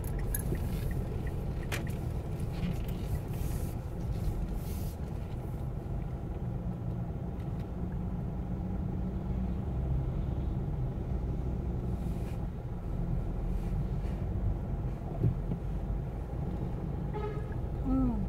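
Steady low rumble of a car's engine and tyres, heard from inside the cabin while driving slowly.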